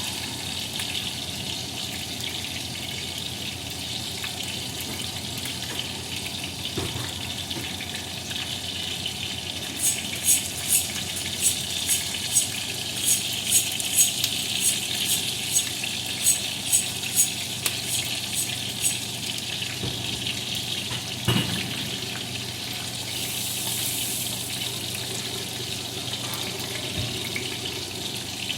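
Chicken drumsticks frying in oil in a pan, a steady sizzle. In the middle comes a run of sharp, evenly spaced clicks, about two a second, and a single knock follows a little later.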